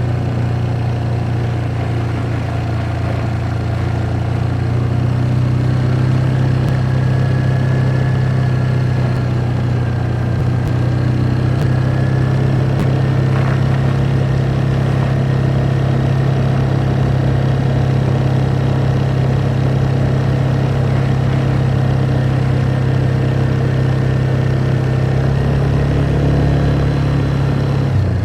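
ATV engine running steadily while riding, a loud, even low drone that holds one pitch throughout.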